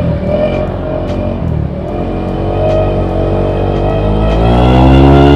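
Honda Beat scooter's single-cylinder engine through an MP7 'hiung' regulation aftermarket exhaust, under way. The exhaust note holds fairly steady for about two seconds, then rises in pitch and grows louder as the scooter accelerates.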